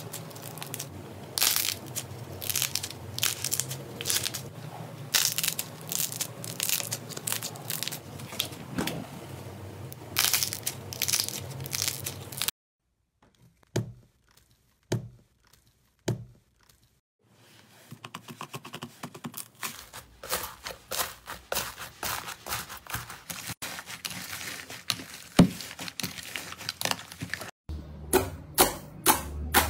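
Slime being squeezed, stretched and pressed by hand: a run of sticky crackles and clicks. About halfway through there is a nearly silent stretch with only a few clicks, and near the end come quicker, louder pops as fingers poke into a clear slime.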